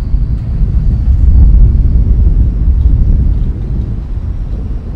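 Distant thunder rolling: a deep rumble that swells about a second in and slowly dies away.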